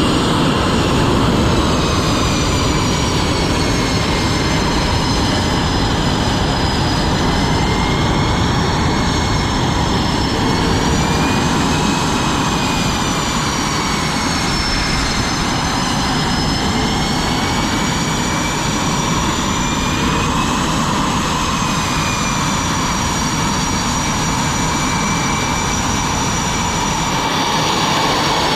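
Jet aircraft engines running on a carrier flight deck: a loud, steady roar with a high whine that slowly wavers up and down in pitch.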